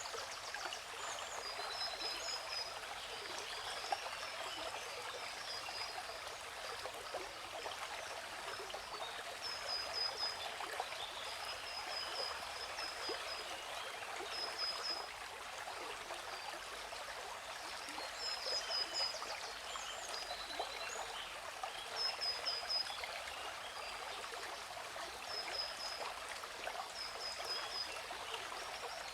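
Waterfall's steady rushing water, with birds chirping over it in short, high, repeated bursts that come and go in small groups.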